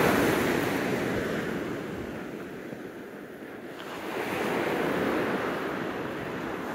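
Surf breaking and washing up the beach, loud at first and dying away, then surging again a little after the middle.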